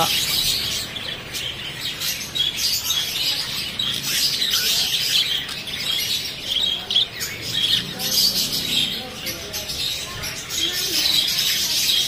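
A crowd of caged budgerigars chattering and chirping all at once: a dense, continuous din of short high calls with no pauses.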